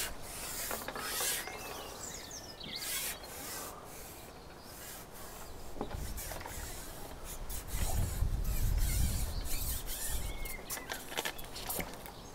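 Handling noise of a carbon fishing pole while a hooked fish is played and landed: the pole rubbing and sliding, with scattered clicks and knocks and a low rumble about eight seconds in.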